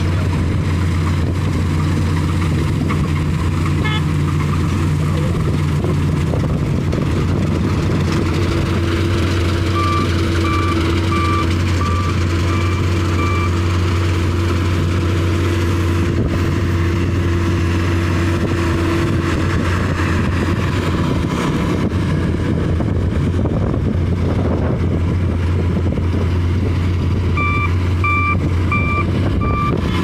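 Laverda 3750 combine harvester running steadily under load while cutting wheat, its engine and threshing machinery humming throughout. A beeping alarm goes off about three times every two seconds for a few seconds near the middle, and again near the end.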